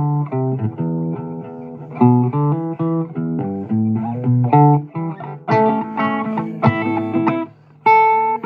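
Guitar music: plucked single notes and chords in a steady rhythm, with a brief pause near the end before it picks up again.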